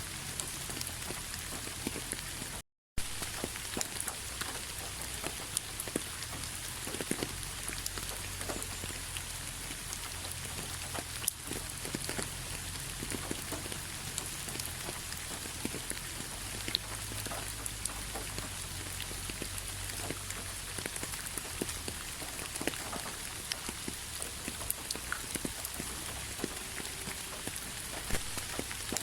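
Steady rainfall, a constant hiss with many individual drops landing as sharp ticks. The sound cuts out completely for a moment about three seconds in.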